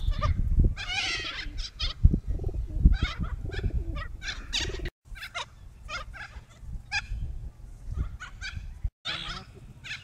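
A flock of wild parrots, white cockatoos among them, screeching and squawking in many short harsh calls over a low rumble. The sound cuts out briefly twice.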